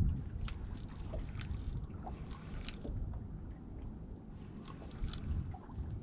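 Low wind rumble on the microphone and water moving against a small boat's hull at sea, with a few scattered light clicks.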